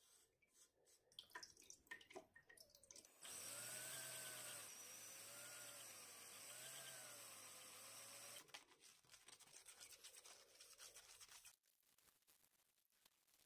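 AEG cordless drill running for about five seconds at a hole in the dividing head's casting, its motor whine wavering up and down in pitch. Before and after it, scratching and rubbing of hand-cleaning on the metal.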